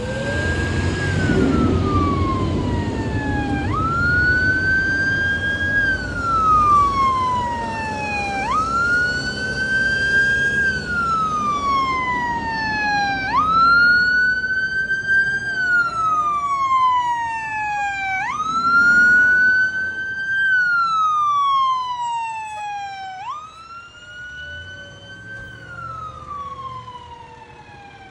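Emergency vehicle siren on wail, rising quickly and falling slowly in a cycle that repeats about every five seconds, over a vehicle engine rumble. The siren passes and grows fainter near the end.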